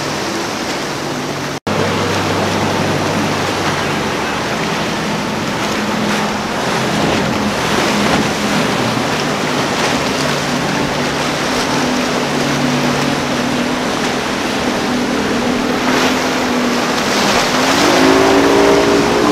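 Outboard motors of center-console fishing boats running at speed through choppy inlet water, their drone mixed with the rush of hull spray and wake. Near the end the engine note climbs as the triple Yamaha outboards are throttled up.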